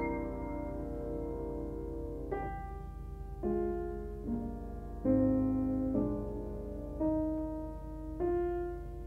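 Upright piano played solo in a slow, gentle piece: a held chord rings and fades, then new chords are struck about once a second, each one ringing out and dying away.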